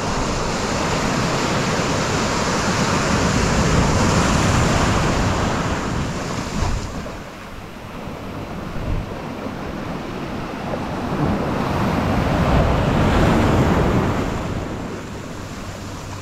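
Ocean surf breaking and washing in over the shallows, a steady rush of water. It swells and ebbs twice: loud for the first six seconds or so, dropping off, then building again about twelve to fourteen seconds in before easing.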